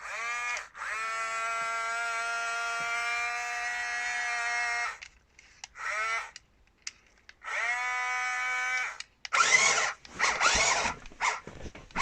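Small electric gear motor in a Tokyo Marui 1/24-scale RC M1A2 Abrams tank whining in four runs, each rising in pitch as it spins up and then holding steady, the longest about four seconds, as the cannon is driven up and down. Near the end, a couple of seconds of irregular clattering and rubbing.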